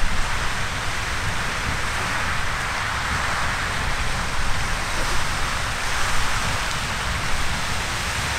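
Riverside Geyser erupting: its jet of water and steam makes a steady, loud rushing hiss, with the falling water splashing down.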